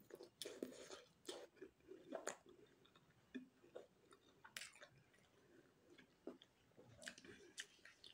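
A person chewing a mouthful of spicy momo dumpling: quiet, irregular wet smacks and clicks of the mouth.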